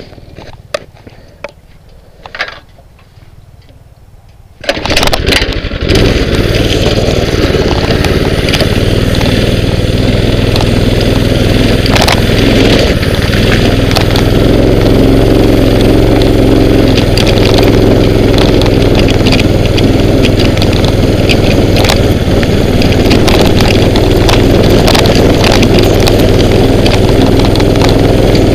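Mini bike's small engine: a few clicks and knocks, then the engine starts about five seconds in and runs loud and steady as the bike moves off.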